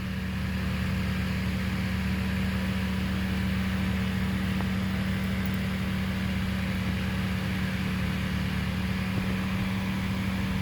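Steady machine hum with a constant low drone and a few fainter steady tones above it, unchanging throughout.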